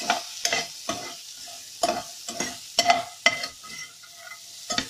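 A metal spoon scraping and clinking against a stainless steel frying pan as sliced vegetables are stirred and fried, with a steady sizzle underneath. There are about a dozen irregular strokes, and the pan rings briefly after each one.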